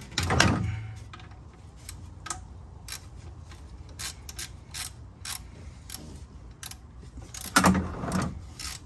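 Ratchet with a 17 mm socket loosening the oil-pan drain plug of a Toyota GR86: scattered sharp ratchet clicks as the handle swings back between turns. A louder, longer noise comes just after the start and another about three-quarters of the way through.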